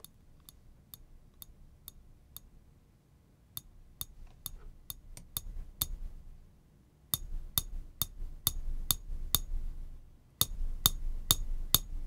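A chopstick tapping a stainless steel ramekin, one sharp metallic tick with a brief high ring at a time, about two or three taps a second. The taps come in four runs split by short pauses, each run struck harder than the last, from very soft to hard hits.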